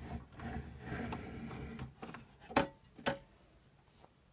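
Plastic parts of a Bosch Tassimo coffee machine being handled: a rustling, scraping noise for about two seconds, then two sharp plastic clicks about half a second apart.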